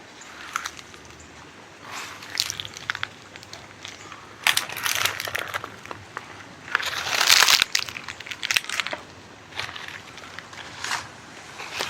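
Footsteps crunching and crackling on dry leaves, an uneven step every second or so, the loudest just past the middle.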